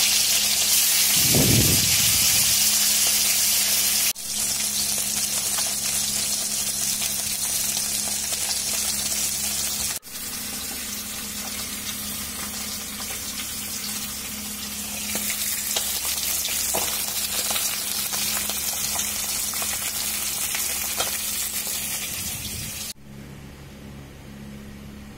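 Pieces of Japani puti fish sizzling as they shallow-fry in hot oil in a kadai, a dense steady hiss over a low steady hum. The sizzle drops in level at sudden cuts about 4 and 10 seconds in, and turns faint for the last two seconds.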